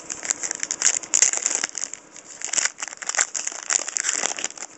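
A trading-card pack wrapper crinkling and crackling as it is torn open and handled, with the cards inside being shuffled out. The crackles come in a dense, irregular run.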